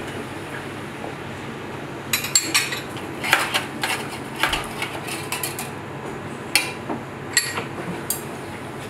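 Metal spoons and utensils clinking against each other and a metal holder as they are rummaged through, starting about two seconds in, followed by three separate sharper clinks near the end. A steady low hum runs underneath.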